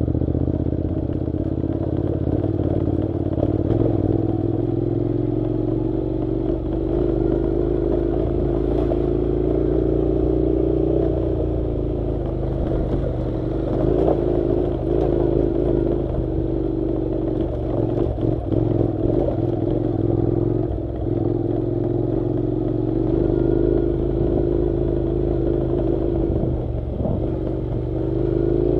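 Honda NC700 parallel-twin engine running steadily while riding a dirt track, its pitch rising and falling gently with the throttle, with scattered knocks and clatter from the rough ground.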